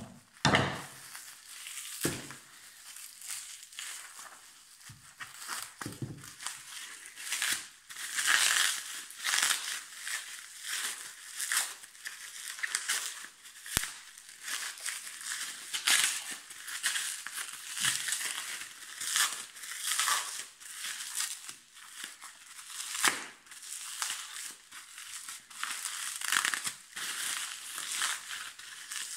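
Bubble wrap and plastic packaging crinkling and crackling in irregular bursts as it is pulled apart and unwrapped by hand.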